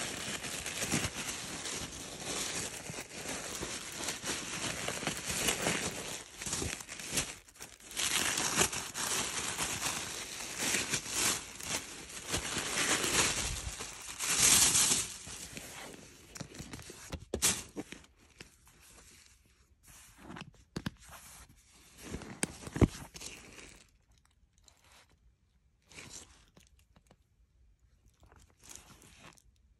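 Tissue paper crinkling and rustling as it is handled, along with the cotton dust bag's fabric. The sound is dense through the first half, with its loudest bursts in the middle, then turns into sparser, fainter rustles and a few sharp taps.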